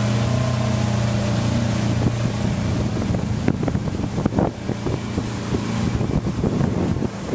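Yamaha outboard motor running at high throttle, pushing the RIB along with water rushing past. After about two seconds the engine's steady tone fades under wind buffeting the microphone and splashing spray.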